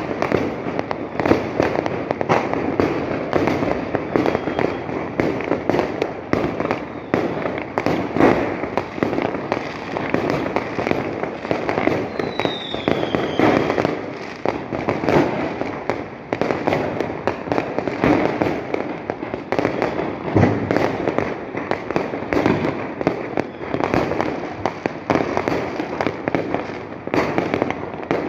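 Dense, continuous fireworks: many overlapping bangs and crackling bursts with no break. About halfway through, a short falling whistle rises above the bangs.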